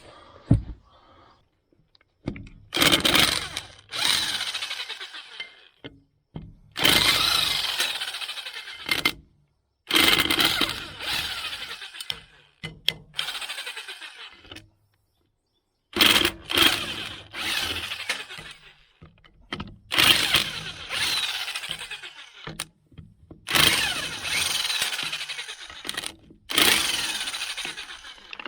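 Impact wrench hammering off wheel nuts, in repeated bursts of a second or two each with short pauses between.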